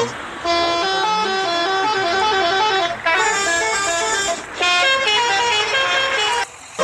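Tour bus's multi-tone 'telolet' horn playing a quick melody of stepped notes, in several phrases with short breaks between them.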